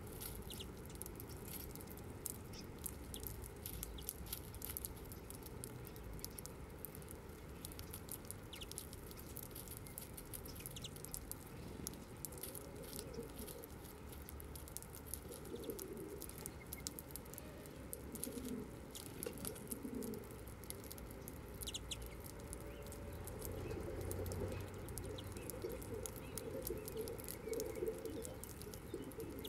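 A flock of European greenfinches feeding on seed on the ground: many quick, sharp clicks and crackles of beaks pecking and husking seed, with a few short bird calls. Soft cooing of a Eurasian collared dove comes in at times, more often in the second half.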